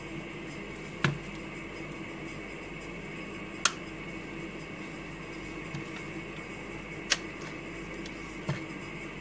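Steady background hum broken by four sharp, short clicks a couple of seconds apart.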